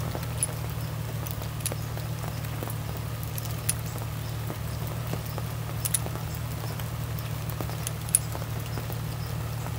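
Light metallic clicks about every two seconds over a steady low hum: cartridges being handled and loaded into a .44 Magnum revolver's cylinder.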